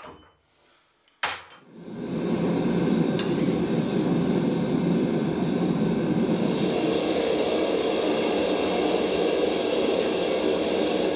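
Gas forge burner running steadily, a constant rushing roar that sets in about two seconds in, after a brief metal clink.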